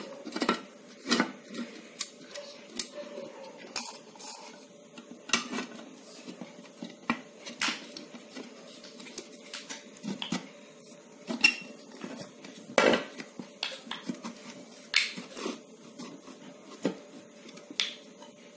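Hard plastic and metal parts of a hot air gun clicking and knocking irregularly as the motor and heating-element assembly is handled and seated into its plastic housing.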